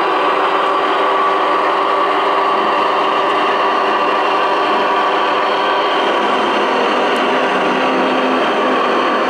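Gauge 1 model train, a DB class 211 diesel locomotive with freight wagons, running past on the track: a steady mechanical hum that holds the same level throughout.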